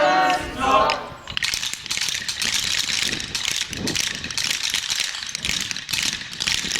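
Several wooden Easter clappers (Klappern) rattling together in a dense, continuous clatter, starting about a second in. Before it, the tail of a group of children's voices chanting a call.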